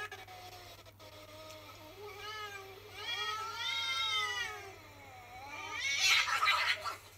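Cats meowing and yowling, played through a laptop's speaker: a run of drawn-out meows that bend up and down in pitch, the longest about a second. Near the end there is a loud rough burst.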